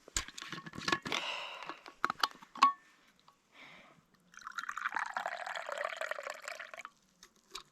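A few sharp clicks and knocks as a drink is handled, then liquid poured into a cup for about two and a half seconds.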